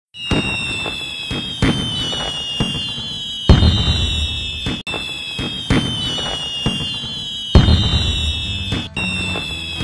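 Fireworks sound effect: a high whistling tone falling slowly in pitch, with a sharp bang and crackle every two seconds or so.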